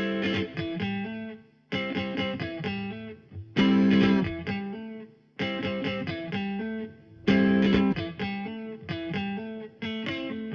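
Electric guitar playing the instrumental intro riff of a rock song in short repeated phrases of plucked notes, with a brief pause between each phrase.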